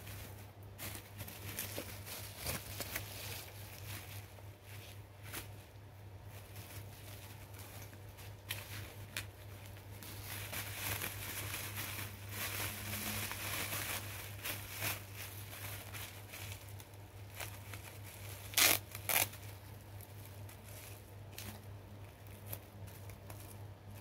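Plastic bubble wrap crinkling and rustling as it is folded and wrapped around an object by hand, with a denser stretch of rustling about halfway through and two sharp snaps close together about two-thirds of the way in. A low steady hum runs underneath.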